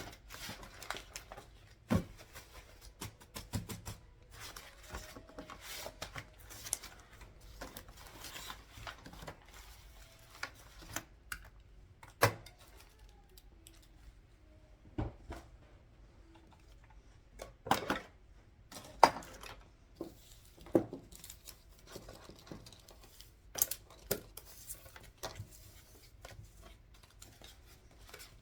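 Paper and small office items handled at a desk: soft paper rustling broken by many irregular sharp clicks and taps, with about a dozen louder knocks.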